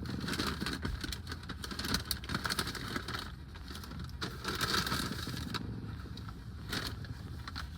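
Sandwich wrapper rustling and crinkling in irregular bursts as it is handled and opened, over a steady low hum.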